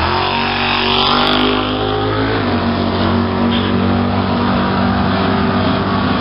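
Drag-race car engines running at the starting line while staging, the revs rising and settling in the first couple of seconds, then running steady.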